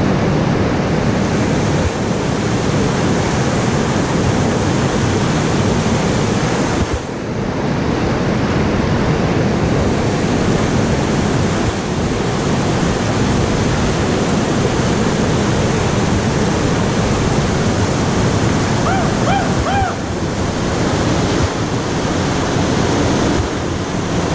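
Whitewater rapid rushing over boulders: a loud, steady wash of churning river water.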